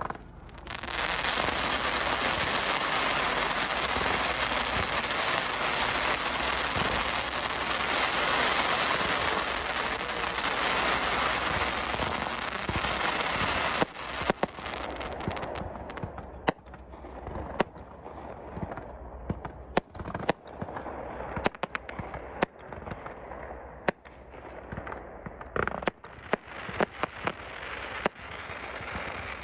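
Fireworks going off: a dense, continuous crackle for about the first half, then a run of separate sharp bangs and pops.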